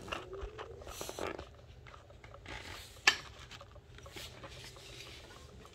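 Metal mini bike brake parts being handled: light clinks and rattles, with one sharp click about three seconds in.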